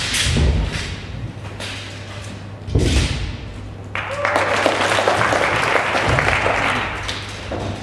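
A heavy thud on the competition carpet about three seconds in, as the broadsword performer lands from a jump down into a split. About a second later the audience breaks into applause that lasts some three seconds and tails off near the end.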